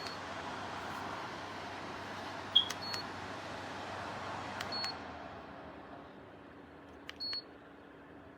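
Electric tower fan blowing with a steady rush of air, its control panel giving short high beeps as buttons are pressed, four times, with a sharp click between the first two. The airflow winds down from about halfway through as the fan is slowed or switched off.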